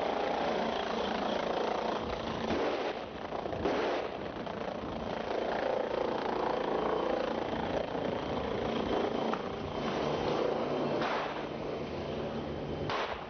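Helicopter running steadily close by, a continuous rotor and engine noise, broken by a few short bangs: one about four seconds in and two near the end.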